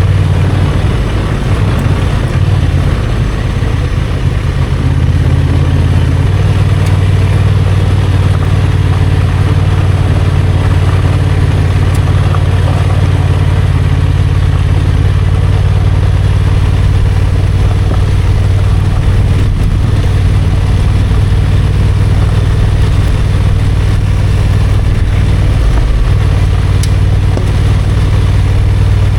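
Honda XL750 Transalp's parallel-twin engine running steadily under way. Its note steps up about six seconds in and dips briefly near the end.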